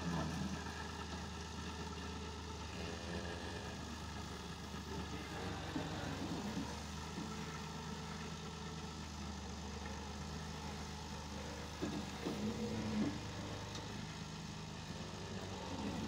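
Turbo 360 tractor's diesel engine idling steadily.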